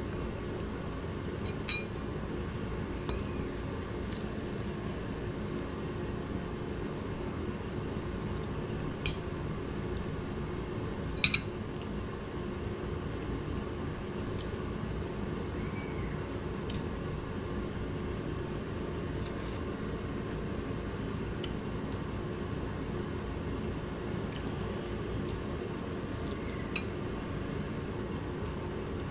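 Kitchenware clinking now and then: about ten separate sharp clinks of glass, dishes or cutlery, the loudest about eleven seconds in, over a steady low hum.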